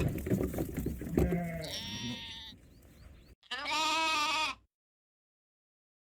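Bleating livestock: several bleats, the last a loud wavering one about three and a half seconds in that cuts off abruptly into silence.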